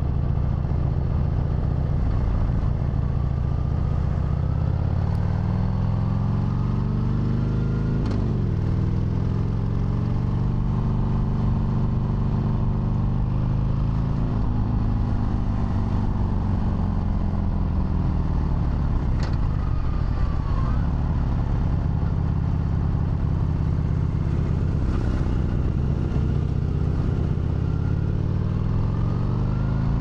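Harley-Davidson Sportster V-twin motorcycle engine under way. The revs climb, drop sharply at a gear change about eight seconds in, hold, then fall away as the bike slows. They stay low for several seconds before climbing again near the end.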